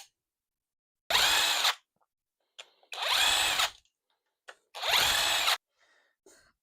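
Handheld power drill run in three short bursts of under a second each, its motor spinning up with each squeeze of the trigger, as it works on a fastener on the engine.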